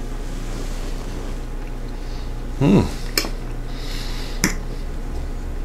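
A metal fork clinking against a dinner plate: two sharp clinks about a second and a half apart, over a low steady hum. Just before the first clink, a short 'mm' from the eater falls in pitch.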